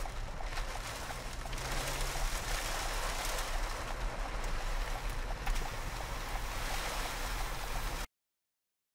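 Steady rain and wind noise heard from inside a vehicle, with windshield wipers running. It cuts off suddenly near the end.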